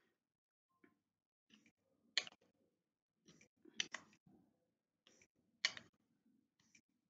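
A few short, sharp clicks as an Elcometer surface profile needle gauge is pressed down onto and lifted off its zero plate to check the zero reading, two of them close together about halfway through, with faint handling rustle between.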